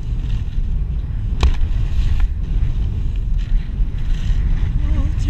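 Wind rumbling over a body-worn action camera's microphone as a skier runs through deep snow, with the skis hissing through powder. A single sharp knock comes about a second and a half in, and near the end a voice starts a wavering, sung note.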